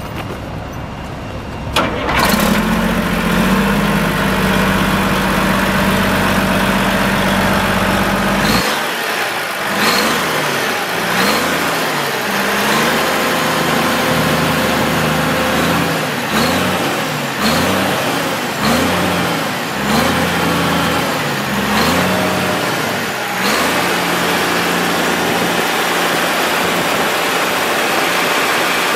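Cummins L10 diesel engine of a 1990 Champion 740A motor grader starting up about two seconds in and running steadily. From about nine seconds it is revved in a string of short throttle blips, roughly one every second or so, then settles back to an even idle near the end.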